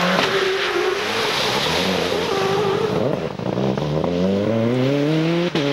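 Ford Escort rally car's turbocharged four-cylinder engine at high revs through a bend, its pitch wavering, then a long rising pull as it accelerates away.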